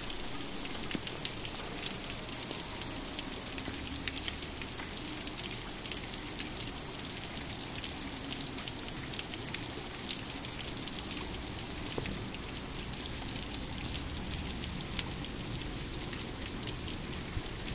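Steady rain falling on a wet paved street, a continuous hiss dotted with many small drop taps.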